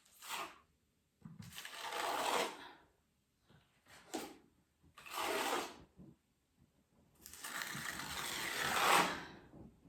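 Putty knife scraping filler across a wall in repeated strokes: about five, the longer ones lasting a second or two, the longest near the end.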